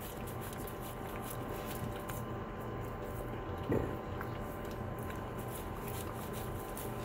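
Saint Bernards licking and smacking at leftover pie crumbs close to the microphone: faint wet mouth clicks over a steady hum, with one brief louder sound a little under four seconds in.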